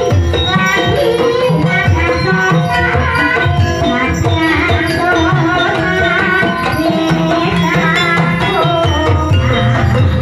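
Live Javanese kuda lumping (ebeg) accompaniment music: hand drums beating steadily under a pitched melody, loud and without a break.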